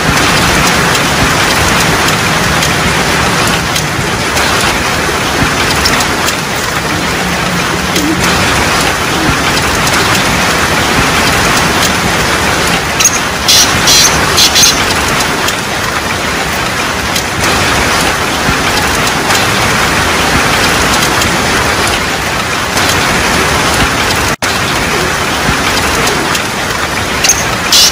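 Steady heavy rain pouring down. Over it, a black francolin (kala teetar) gives its harsh, ringing call of several notes about halfway through, and starts again right at the end.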